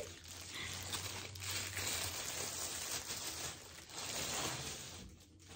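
Clear plastic wrapping crinkling and rustling as a braided bag strap is handled and pulled out of it, dying down near the end.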